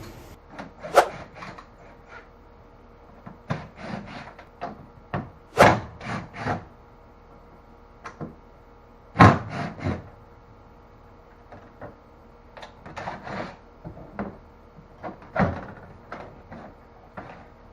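Irregular knocks, scrapes and rubbing as the tubes are worked loose and pulled out of a Hobie Pro Angler kayak, with two louder knocks about six and nine seconds in.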